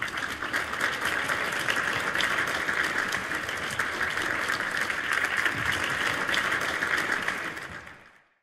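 Applause: a crowd clapping steadily, fading out near the end.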